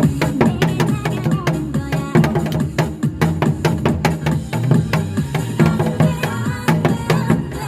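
Janggu, the Korean hourglass drum, struck in quick rhythmic strokes along to an upbeat recorded dance-pop song with a steady bass line.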